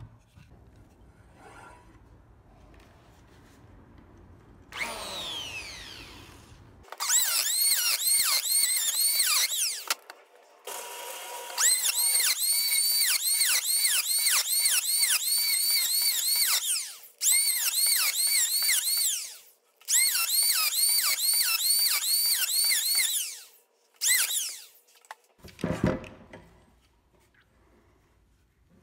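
Handheld power tool cutting into a wooden block in several separate bursts, its high whine rising and falling several times a second as it bites into the wood. A low knock follows near the end.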